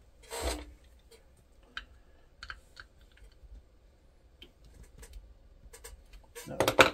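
Small screwdriver clicking and scraping against the screws and metal of a Betamax video drum motor as its circuit board is unscrewed: a brief handling rustle just after the start, scattered light clicks, and a louder burst of scraping clicks near the end.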